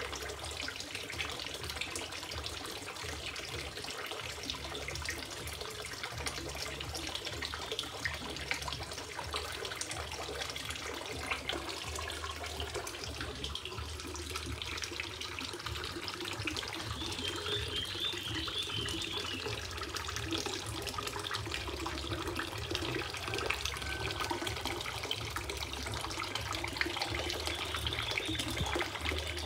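Water from a fountain spout and a filter outlet pouring and splashing steadily into a small garden fish pond, over a steady low hum.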